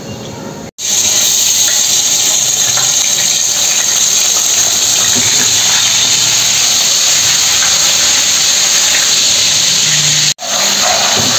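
Hot oil sizzling and bubbling steadily in a frying pan, starting about a second in, with a brief break near the end.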